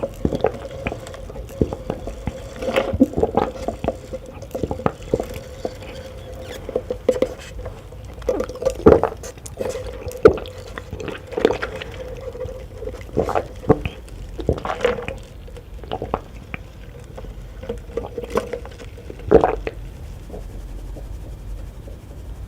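Close-up eating sounds: a person chewing and smacking wet food in short, irregular clicks, over a faint steady hum. The eating sounds stop a couple of seconds before the end.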